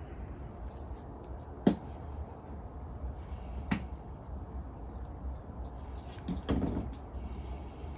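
A few sharp clicks and taps of small tools and parts being handled on a workbench during a soldering repair, the loudest about two seconds in, another near four seconds and a short cluster near the end, over a low steady hum.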